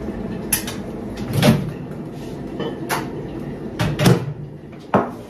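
Household knocks and clunks, about six spread over five seconds, the loudest about a second and a half in and about four seconds in: things being handled in a kitchen, such as cupboard doors and items set down.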